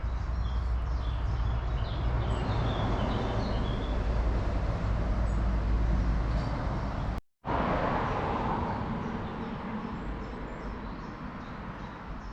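Road traffic rumbling by on the nearby main road, with small birds chirping. After a short break about seven seconds in, a vehicle's noise fades away.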